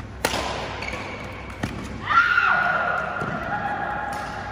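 Badminton racket striking a shuttlecock with a sharp, echoing crack, then a lighter tap about a second and a half later. About two seconds in comes the loudest sound, a player's drawn-out vocal exclamation as the rally ends.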